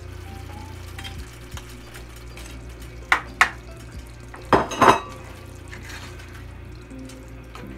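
Spatula stirring beaten eggs and sliced bitter melon in a frying pan, with two pairs of sharp kitchenware knocks about three and four and a half seconds in.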